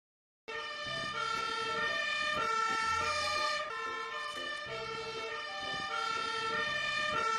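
Fire engine's siren sounding in alternating pitches, starting about half a second in.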